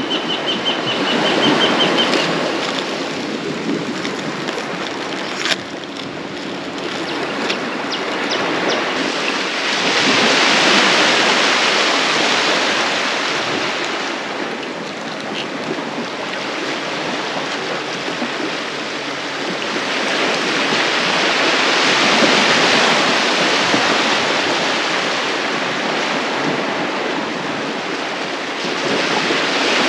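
Sea waves washing onto a sandy beach, a steady rush that swells and ebbs about every ten seconds. A bird gives a short high trill in the first two seconds.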